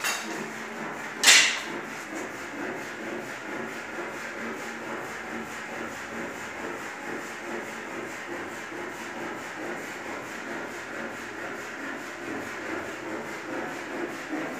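A single sharp knock a little over a second in, then steady rough rubbing noise.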